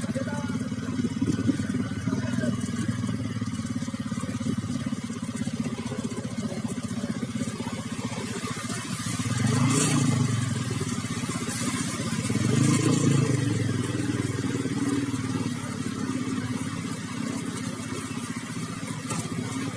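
A small vehicle engine running steadily close by, rising in level twice: about ten seconds in and again about thirteen seconds in.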